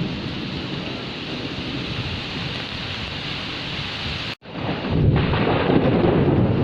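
Heavy rain with rumbling thunder. About four seconds in, the sound cuts out for a split second, then comes back louder with a deeper rumble.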